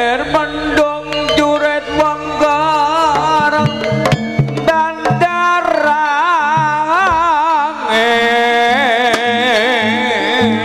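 Live Javanese jaranan music: hand drums played in quick strokes under a gamelan ensemble, with a lead melody that wavers in heavy vibrato over steady held tones.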